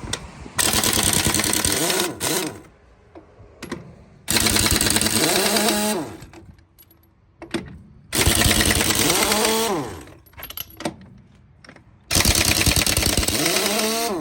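Pneumatic impact wrench run in four bursts of about two seconds each, hammering rapidly, each burst winding down in pitch as the trigger is released, as it spins truck wheel lug nuts.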